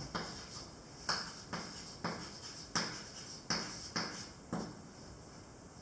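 Chalk tapping and scraping on a blackboard as words are written by hand: about ten short, sharp clicks at an uneven pace of roughly two a second, stopping about four and a half seconds in.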